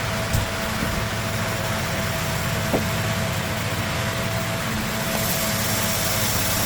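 Steady machine hum with a thin constant tone over it, like a running fan or appliance. A couple of light clicks come about a third of a second in and again near three seconds in.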